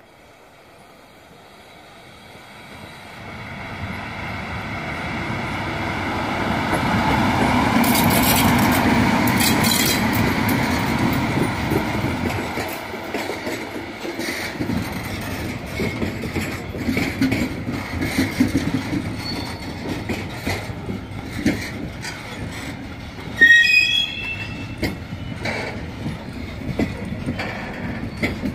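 Freight train hauled by an electric locomotive passing by. The rumble builds over the first several seconds to its loudest around eight to ten seconds in. The wagons then roll past with a steady rumble and irregular clacks of wheels over the rail joints, with a brief high metallic squeal about five seconds before the end.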